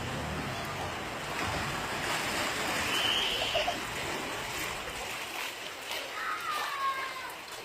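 A steady rushing hiss of wind and water, loudest about three seconds in and thinning out over the last few seconds.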